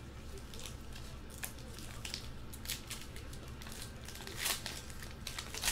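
Trading-card pack wrapper being torn open and crinkled by hand: a run of small, sharp crackles, with a louder crinkle about four and a half seconds in and another at the very end.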